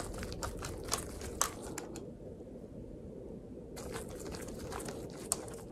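Phillips screwdriver backing screws out of a steel monitor wall mount's tilt bracket: a run of small clicks and scrapes of metal on metal, pausing for about two seconds in the middle before starting again.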